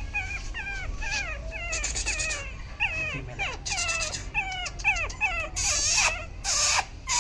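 Yorkshire terrier puppy whimpering: a run of short, high-pitched whines, each dropping in pitch, several a second. Near the end come a couple of harsher, noisier cries.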